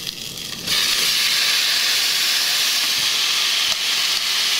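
Chopped fresh tomatoes hit a pot of coditos macaroni toasting in hot lard. Less than a second in, a sudden loud sizzle starts and then hisses on steadily.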